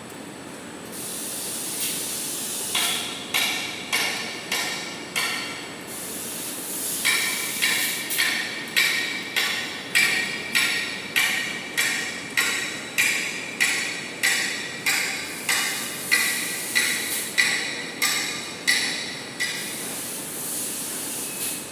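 Toilet paper production line machinery running: a rhythmic metallic clacking with a ringing tone, about two strikes a second, first a short run of about five strikes and then a long steady run. Air hiss fills the stretches before and after the clacking.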